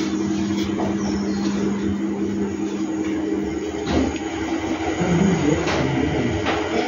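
A steady low mechanical hum holding two tones. The lower tone drops out about four seconds in, at a single knock, and the rest is rougher.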